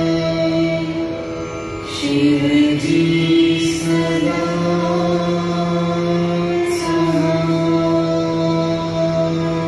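Devotional music: a slow mantra chant sung in long held notes, the pitch shifting every few seconds.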